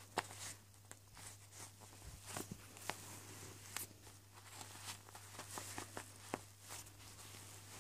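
Fingertip pushing a button along a maze under a clear vinyl sheet on a fabric quiet-book page: faint, irregular plastic crinkles and clicks, over a steady low hum.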